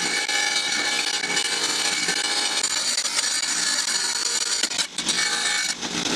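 Electric wet tile saw running, its diamond blade grinding through a glass beer bottle: a steady, high-pitched grinding whine.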